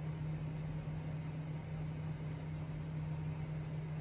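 Steady low mechanical hum with an even faint hiss over it: household machinery running, with no other events.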